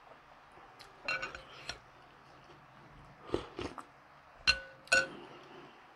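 Spoon clinking against a ceramic bowl several times as food is scooped, the last two clinks ringing briefly.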